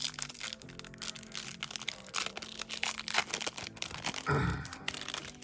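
Foil wrapper of a trading card pack being torn open and crinkled, a dense run of irregular crackles. A person gives a short low grunt about four seconds in.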